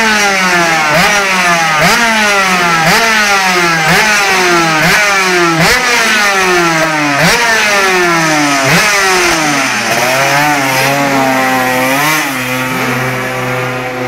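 A 125cc two-stroke GP racing motorcycle engine being blipped on its stand: the revs snap up and fall back roughly once a second, with a high, buzzing two-stroke note. Near the end the revs drop to a steadier, lower note.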